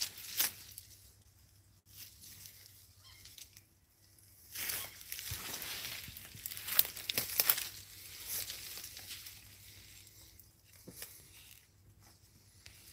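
Footsteps through brush and undergrowth: leaves rustling and dry twigs and fallen branches cracking underfoot, in scattered bursts that are busiest near the middle.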